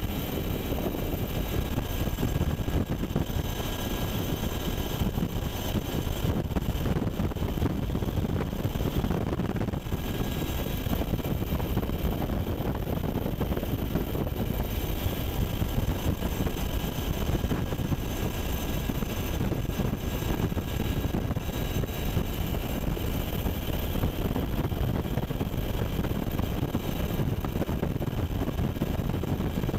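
Steady engine and rotor noise of a UH-60 Black Hawk helicopter in flight, heard from aboard: a constant low rumble with faint steady high-pitched whine above it.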